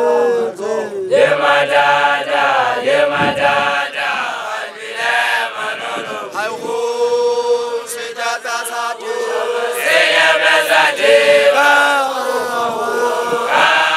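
A woman chanting a traditional song, holding long notes between shorter sung phrases.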